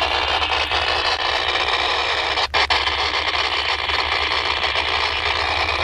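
Railroad scanner radio hissing with open static, with two brief dropouts about two and a half seconds in, over the low rumble of approaching diesel freight locomotives.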